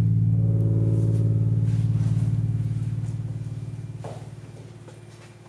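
Loud, low buzzing drone with a fast, even pulse, with a higher tone above it for the first couple of seconds; it fades away steadily. An electronic drone in the performance's soundtrack.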